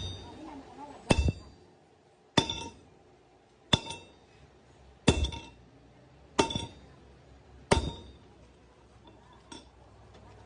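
Hammer striking steel in slow, steady blows, six strikes about a second and a quarter apart, each leaving a short metallic ring, then a lighter tap near the end.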